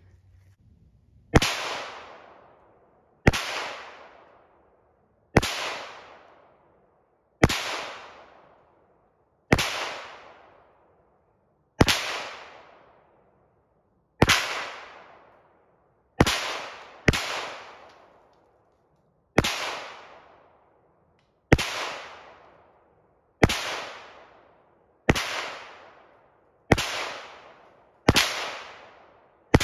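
Kel-Tec PMR-30 .22 Magnum pistol fired slowly, about fifteen single shots roughly two seconds apart, two of them close together about halfway through. Heard from the target end, 50 yards from the shooter, each crack trails off in a long echo through the woods.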